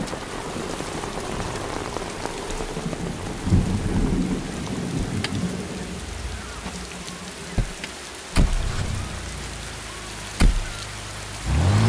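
Heavy rain falling steadily, with a few sharp knocks in the second half. Near the end a car engine starts and revs up, its pitch rising.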